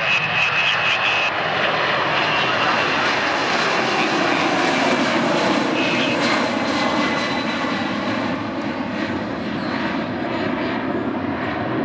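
Boeing 747's four jet engines at takeoff power, a loud, steady rumble as the heavy jet passes close by. A high steady whine cuts off about a second in.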